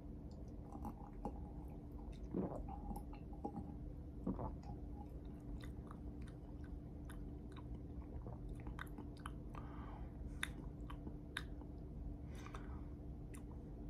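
Faint mouth sounds of a man tasting soda: a sip and swallow from a glass, then scattered small lip smacks and tongue clicks with a few soft breaths. A low steady hum sits underneath.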